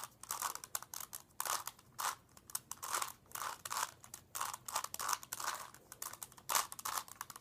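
3x3 Rubik's Cube being turned by hand: plastic layers clicking and scraping in quick, irregular turns, about one or two a second.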